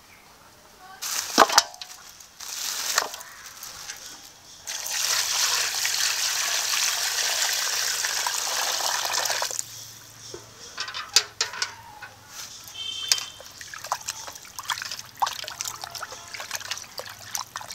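A few sharp rustles near the start, then water pours steadily into a steel pot of raw chicken pieces for about five seconds. After that come small splashes and sloshes as a hand washes the chicken in the water.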